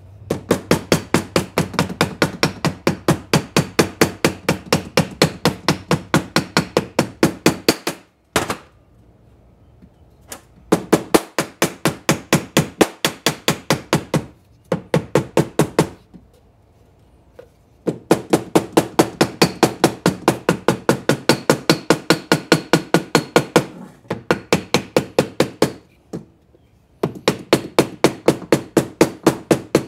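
Small ball-peen hammer tapping gasket material against the edge of an engine cylinder, cutting a gasket out on the cylinder's sharp edge. The light blows come quickly and evenly, about four to five a second, in runs of several seconds with short pauses between them.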